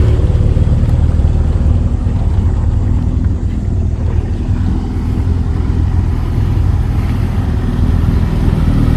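Johnson 40 hp two-stroke outboard running steadily under way at cruising speed, a constant low drone; the motor sounds healthy.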